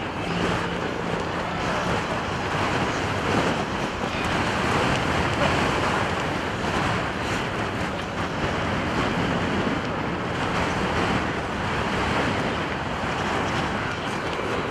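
Strong wind buffeting the microphone. Under it, the faint steady drone of Stearman biplanes' radial engines flying overhead.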